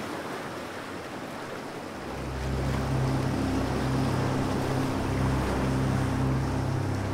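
Sea waves washing, joined about two seconds in by a low, steady hum of several tones that makes the sound louder.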